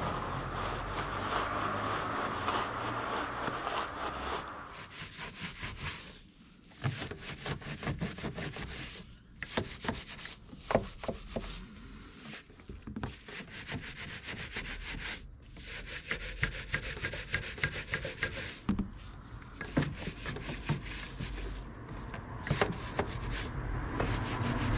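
Stiff-bristled barrel detailing brush scrubbing wet, cleaner-foamed engine-bay panels, in quick, irregular rubbing strokes with a few sharper knocks.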